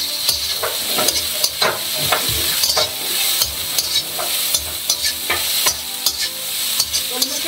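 Sliced vegetables sizzling in hot oil as they are stir-fried in an iron wok, with a flat metal spatula scraping and tossing them in repeated strokes about once or twice a second over a steady hiss.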